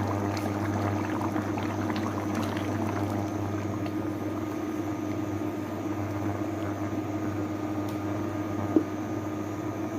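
Chicken curry with coconut milk bubbling in a pot on the stove, a light crackle of small pops over a steady low hum, with one sharp click about nine seconds in.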